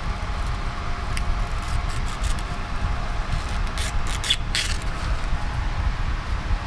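Scrap parts being handled, with a few short scrapes and rustles and a brief clatter past the middle, over a steady low rumble.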